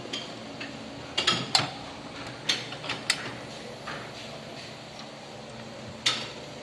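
Irregular clicks and clattering knocks of parts and tools being handled while an electronic keyboard is taken apart, with a quick cluster of knocks a little over a second in.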